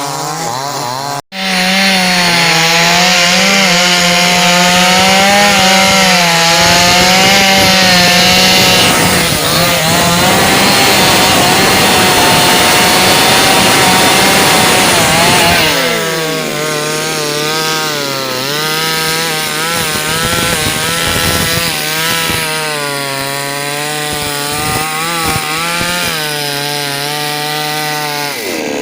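X-Power 52cc two-stroke chainsaw running at high speed, cutting through wood. About halfway through it comes out of the cut and keeps running, its engine speed rising and falling.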